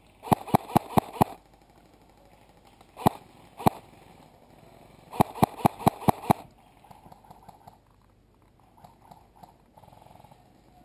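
Airsoft rifle firing close by in short strings: about five quick shots, two single shots, then a string of about seven shots.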